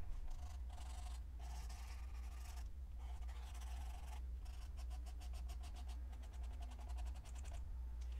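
Paint marker being primed on scrap paper: its tip is pressed and worked against the paper in bouts of rapid, scratchy clicking strokes with short pauses, to get paint that is not flowing to come through.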